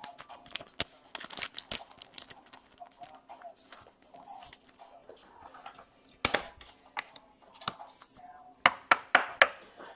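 Clear plastic card sleeve crinkling and clicking as a trading card is slid into it by hand. There are scattered sharp ticks throughout, with the loudest clicks about six seconds in and a quick run of them near the end.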